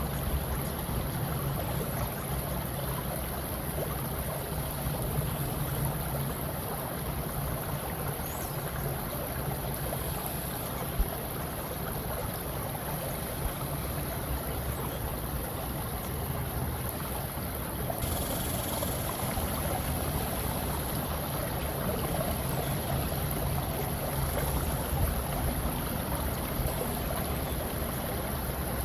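Steady rushing water, like a flowing stream, running evenly as an ambient nature-sound bed.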